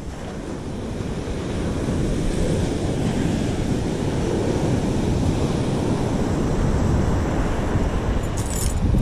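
Ocean surf washing onto a beach, with wind rumbling on the microphone: a steady rushing noise. A brief sharp sound cuts in near the end.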